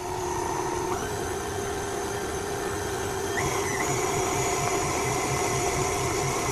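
Electric stand mixer running with its flat beater turning through thick chocolate cupcake batter, a steady motor hum with a low rhythmic churn. Its pitch steps up a little about a second in and again midway, as the mixer speeds up.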